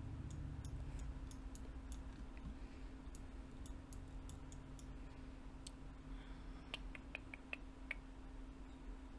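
Computer mouse clicking irregularly as a 3D model is rotated, zoomed and given supports in slicer software. The clicks are faint and scattered, bunching closer together near the end, over a faint steady hum.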